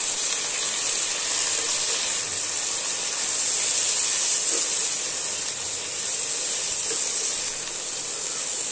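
Shredded cabbage and vegetables sizzling steadily in hot oil in a pan, stirred now and then with a wooden spatula.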